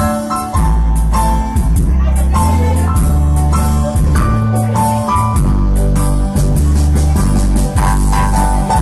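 Electronic arranger keyboard playing an instrumental passage: a melody over its automatic bass and drum accompaniment, with the bass notes changing to a steady beat.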